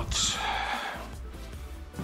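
Background music, with a short breathy hiss in the first second.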